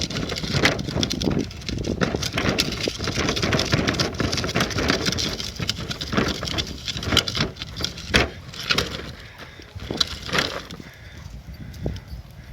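Dogs romping and running about: irregular scuffling, rustling and thumps of paws, with the odd sharp knock.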